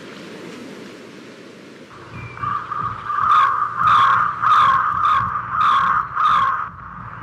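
Birds calling, a run of about seven loud repeated calls starting about two seconds in, over a steady soft rushing noise like surf.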